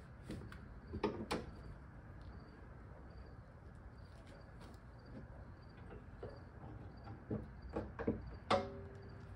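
Hood latch and hood of an S197 Ford Mustang being released and lifted: a couple of clicks and knocks about a second in, then a run of sharp metal clicks and knocks near the end as the raised hood is handled, the last with a short ring.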